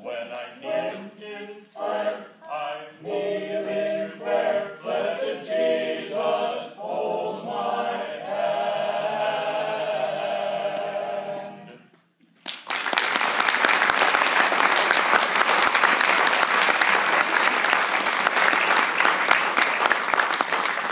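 A vocal double quartet singing in close harmony, closing on a long held chord, then stopping. About a second later an audience breaks into loud applause that runs on.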